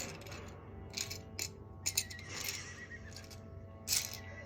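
Quiet music of sustained tones, one high note wavering, under irregular light clicks and clinks.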